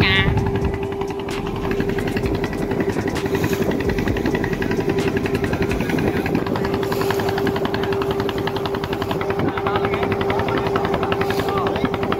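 Fishing boat's inboard engine running steadily under way, with a rapid, even chugging and a steady hum.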